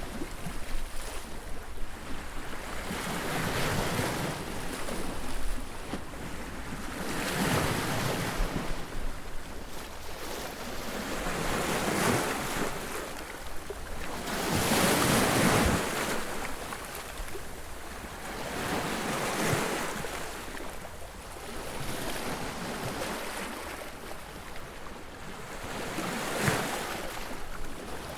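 Ocean surf: waves breaking and washing up a beach in repeated surges every few seconds, with a bigger wave crashing about halfway through.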